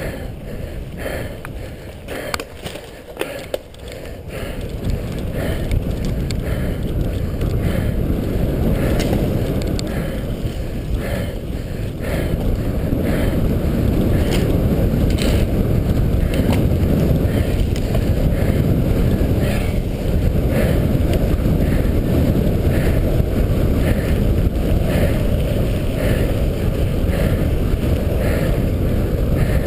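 Wind buffeting an on-board camera's microphone and tyre rumble from a cyclocross bike racing over dirt, grass and pavement, getting louder over the first several seconds as speed picks up, with a faint repeating sound about once a second.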